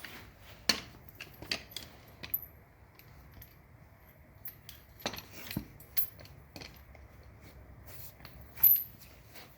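Steel tire chain links clinking and rattling as the chain is handled, in scattered sharp metallic clicks, with a louder clack near the end.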